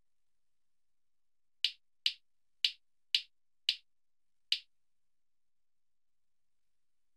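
Six key-press clicks from a Samsung smartphone's touchscreen keyboard as the word "Surely" is typed, one click per letter, unevenly spaced over about three seconds. Near silence between the clicks.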